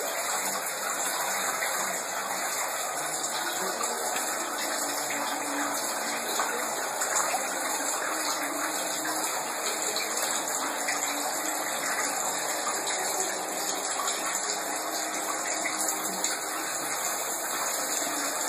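Kitchen hot-water tap running at full flow, water gushing steadily into the sink. The strong pressure comes from a gas water heater whose coil has just been descaled with vinegar.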